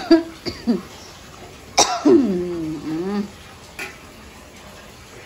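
A person coughing: short coughs right at the start, then a harder cough about two seconds in, running into a long throaty sound that falls in pitch.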